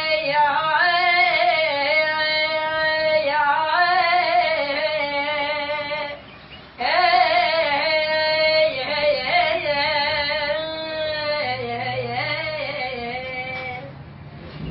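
A woman's solo voice singing long held notes with a wide vibrato, breaking off briefly about six seconds in and then going on.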